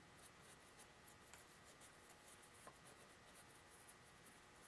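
Very faint, soft scratchy strokes of a paintbrush dabbing a thin acrylic wash onto plaster rock castings.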